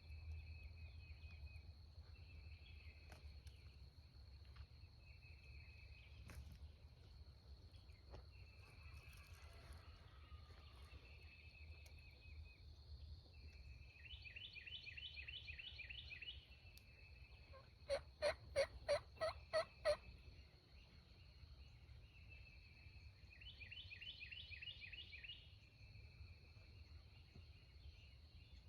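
A wild turkey gobbler gobbles once, about two-thirds of the way in: a loud rapid rattle of about seven pulses lasting some two seconds. Under it, short buzzy trills repeat every few seconds over a steady high drone.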